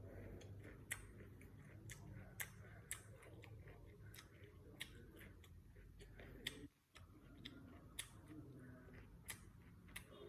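Faint eating sounds: sharp, irregular mouth clicks and small crunches of chewing, about one a second, over a low steady hum.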